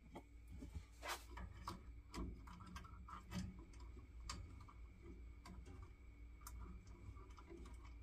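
Faint, irregular small clicks and taps of hands handling fittings and wiring at a boiler's gas valve, a few louder clicks between about one and four and a half seconds in.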